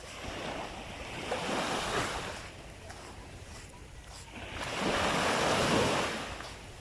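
Small waves breaking and washing up a sandy beach, two surges about three seconds apart, the second louder, over a low wind rumble on the microphone.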